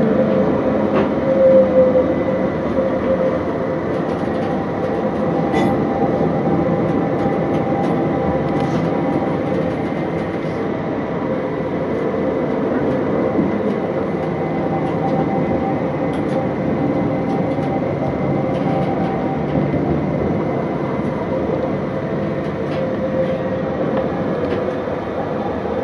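CAF Urbos 3 light-rail tram running along its track, heard from on board: a steady rolling rumble of the wheels on the rails, with a steady whine running through it.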